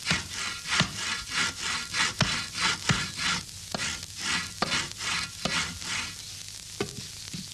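Cartoon sound effects of woodwork: a saw rasping back and forth in quick strokes, about three a second, with sharp knocks on wood every second or so. The sawing dies away about six seconds in, leaving a couple of knocks.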